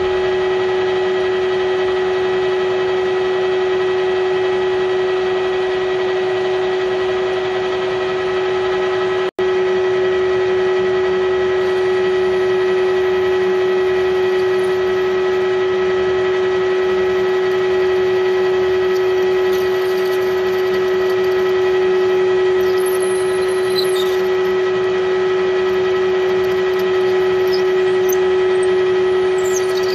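Metal lathe running steadily with a strong constant hum as it spins an aluminium bar, while a drill in the tailstock chuck is fed into the end of the bar. The sound breaks off for an instant about nine seconds in, and faint high squeaks from the drill cutting come in the second half.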